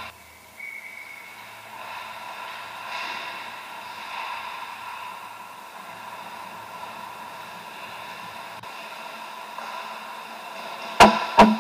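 Ice rink ambience during a hockey game, a steady hiss. Near the end two loud sharp knocks, under half a second apart, with a short ringing after each.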